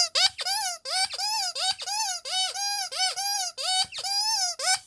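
Rubber Donald Duck squeaky toy squeezed over and over: about two to three short squeaks a second, each a pitched note that rises and then falls.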